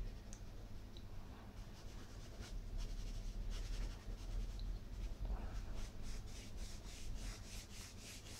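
Pastel stick scratching across textured pastel paper in short repeated strokes, coming faster in the last few seconds, over a low steady hum.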